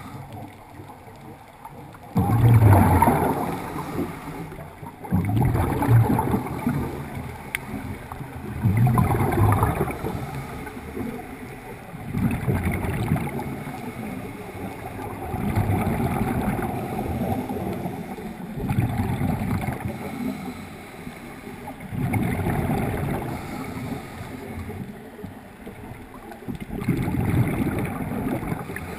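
Scuba diver breathing through a regulator underwater: a gurgling rush of exhaled bubbles about every three to four seconds, with quieter breathing between.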